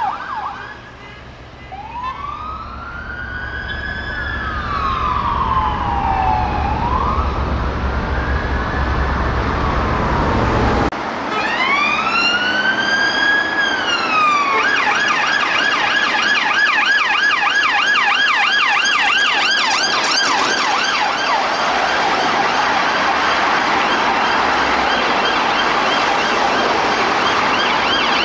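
Two UK police car sirens. The first wails slowly up and down, faint at first and growing louder as the car approaches over road rumble. After a cut, a second police car's siren wails twice and then switches to a fast yelp.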